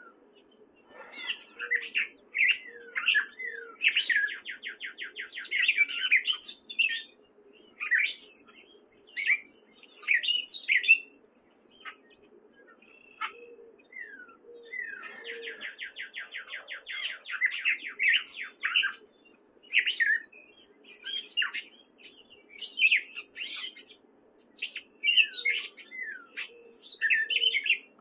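Gray catbird singing: a long, rambling run of varied squeaky, slurred phrases, with two fast, even trills about four and sixteen seconds in, and a lull of a few seconds in the middle.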